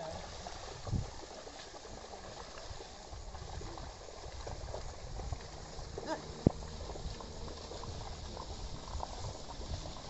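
Pair of bullocks and a wooden plough sloshing and splashing through flooded paddy mud, a steady wet churning. A single sharp click about six and a half seconds in.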